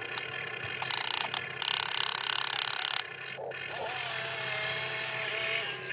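RC excavator's electric gear drives working the boom and bucket in stony soil. A loud rattling grind runs from about one to three seconds in, then a steady motor whine.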